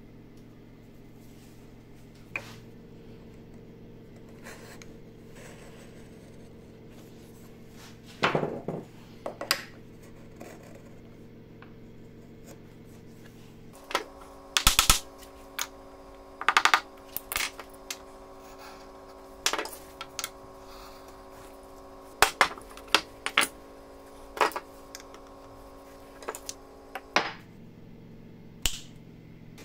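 Scattered light clicks and knocks of a wooden strike block plane's parts being handled on a workbench: the steel iron and wooden wedge set into and tapped against the plane body, some in quick clusters. A steady low hum runs underneath.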